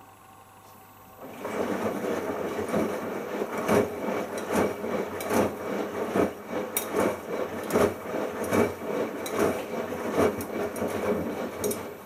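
Bosch Logixx WAS32461 washing machine drum turning during the first rinse, the wet shirts and rinse water tumbling with repeated irregular thuds. The tumble starts about a second in and stops just before the end as the drum pauses.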